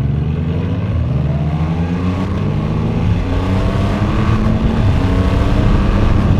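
Triumph Rocket 3's 2.5-litre inline three-cylinder engine pulling hard under acceleration, its note climbing in pitch as road speed rises to around 130 km/h, with a brief change around two seconds in. Wind rush at speed sits under the engine.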